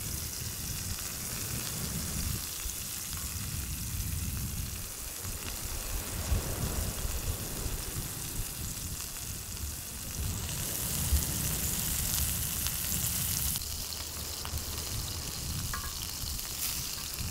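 Thick pieces of grouper frying in palm oil in a cast-iron skillet, a steady sizzle, with a low rumble underneath.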